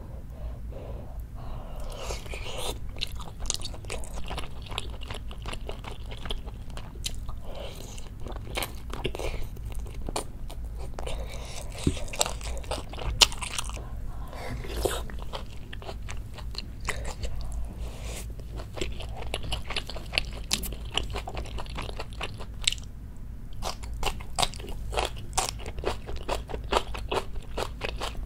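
Close-miked wet chewing, with many small mouth clicks and smacks: a person eating fatty beef large intestine (daechang) and chicken in a spicy stew.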